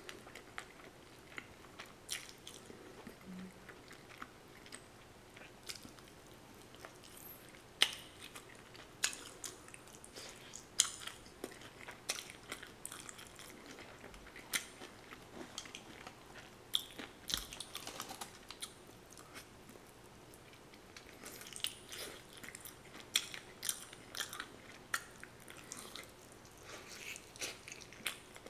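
A person chewing and biting into fried chicken close to the microphone, with irregular sharp crunches.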